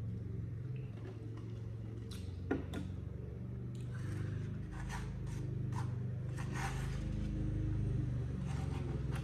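Lawnmower engine running steadily outside with a low hum, under close-up chewing and mouth sounds of someone eating noodles. A single sharp knock comes about two and a half seconds in.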